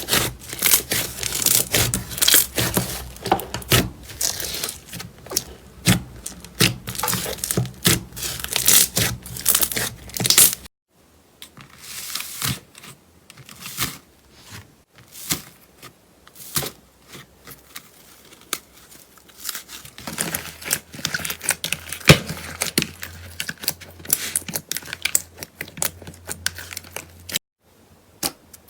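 Slime being squeezed and pressed by hand, giving dense crackling and popping clicks. The sound cuts abruptly twice to quieter, sparser clicking.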